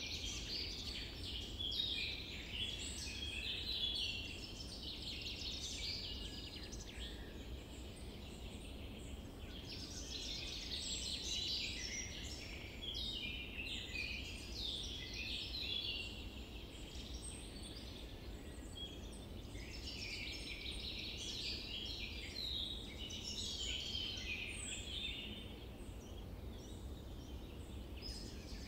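Birds chirping and singing in a dense chorus that comes in three bouts of several seconds, over a steady low background rumble.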